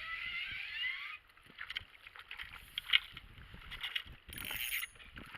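Fishing reel being wound in quickly, a whirring that rises in pitch for about a second, then stops. Scattered clicks and knocks of tackle being handled follow, with a sharp knock about three seconds in.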